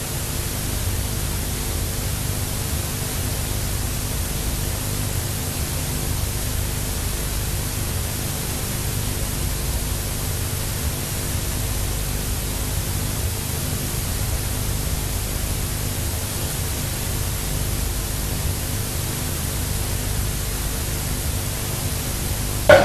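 Steady hiss with a faint low hum and no distinct events: background noise of an old video soundtrack.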